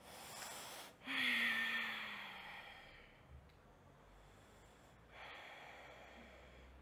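A woman breathing deeply close to a clip-on microphone: a soft inhale, then about a second in a long, louder exhale with a faint falling voiced note like a sigh, and another soft breath near the end.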